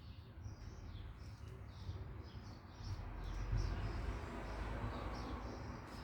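Small birds chirping, many short high chirps one after another, over a low steady rumble.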